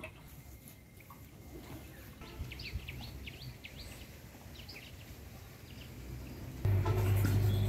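Small birds chirping in short, quick falling notes over faint outdoor background noise. Near the end a steady low hum cuts in abruptly and becomes the loudest sound.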